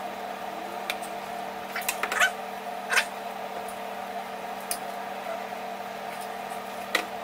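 A steady low hum runs throughout, with a few light clicks and knocks as a PVC pipe bow is handled; the loudest knocks come about two and three seconds in.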